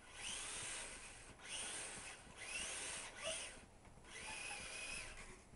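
Electric motor and gears of a stock Tamiya Ford F-150 Racing Truck RC model whining in four throttle bursts, each one rising in pitch as the wheels spin in snow.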